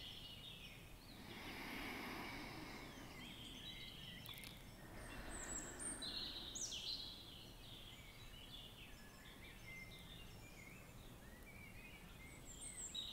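Faint birdsong: short high chirps scattered through, over a soft rushing background that swells and fades twice.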